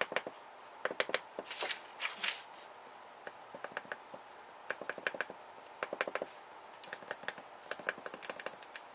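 Small plastic and metal parts of a pH meter's casing and circuit board clicking and clattering in quick clusters as it is pried apart by hand, with two brief scraping rustles about a second and a half to two and a half seconds in.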